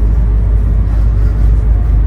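Steady low rumble of an E2 series Shinkansen train.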